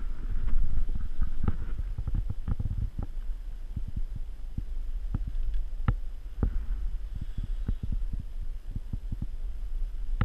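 Steady low rumble with irregular knocks and rubs: handling noise on a body-worn camera's microphone while fighting a fish on a fly rod.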